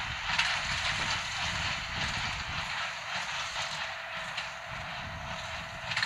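Case IH Maxxum 115 tractor and Massey Ferguson small square baler working in straw: a steady engine rumble under the baler's mechanical hiss, with a few sharper knocks from the baling mechanism.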